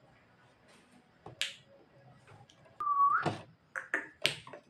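Javan myna calling: a sharp harsh note, then a short whistle that rises at the end, followed by a quick run of clicks and harsh rasping notes.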